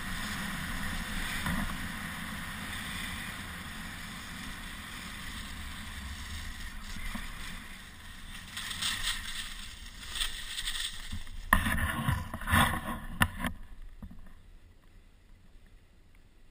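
Skis sliding over packed snow with a steady hiss and wind on the microphone; about eight seconds in it turns rougher, with louder scraping and a few sharp knocks, then quietens markedly near the end.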